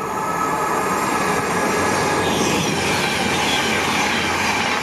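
CrossCountry Voyager diesel multiple unit passing close through the station at speed: underfloor engine and wheel-on-rail noise building as it nears and runs by.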